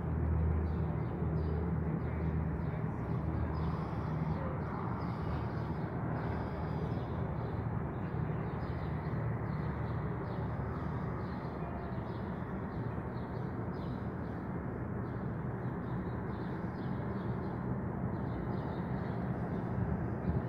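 Steady outdoor rumble and hiss by the water, with a low hum in the first few seconds that fades away, and a faint high flutter throughout.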